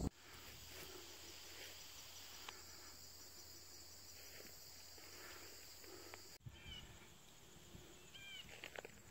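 Faint, steady high-pitched trilling of insects in woodland, which stops abruptly about six seconds in. A few short high chirps follow.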